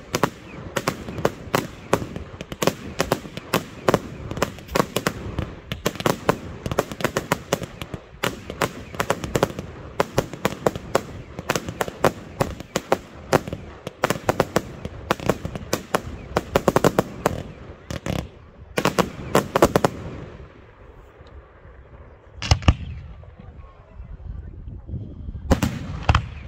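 Professional fireworks display: rapid volleys of launches and bursts crackle and bang almost without pause for about twenty seconds. Then the firing thins out, with two heavy single bangs near the end.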